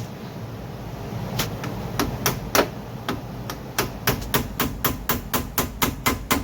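Hammer striking metal, driving at a stuck pin on a rear brake assembly. A few scattered blows come first, then from about four seconds in a steady run of about four blows a second.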